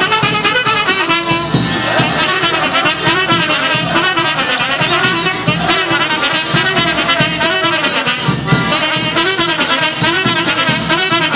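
Brass band playing a folk dance tune with trumpets and trombones over a steady beat.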